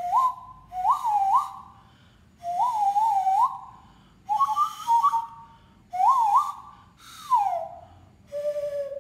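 Wooden zabelê (nose flute) blown through the nose, with the open mouth and tongue shaping the pitch: a breathy whistle in seven short phrases, each note swooping up and dropping back, the last a lower held tone.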